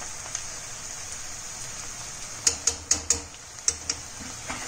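A metal spoon clinks sharply against a steel kadhai in a quick run of about eight taps starting about halfway in, over a steady hiss of vegetables frying in oil.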